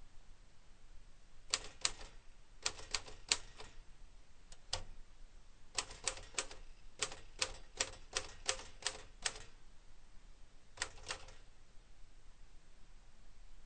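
Keys of a 1953 Royal HHE manual typewriter striking the platen in slow, uneven bursts of sharp clacks with pauses between: test typing on the freshly cleaned machine, not at full speed.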